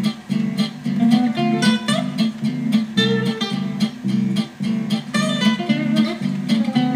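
Background music: an acoustic guitar strumming and plucking chords in a steady rhythm.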